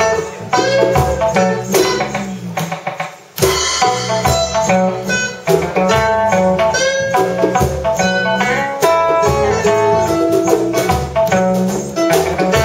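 A small acoustic band playing live, with upright bass and acoustic guitar and light percussion. The music drops out briefly about three seconds in, then the band comes back in.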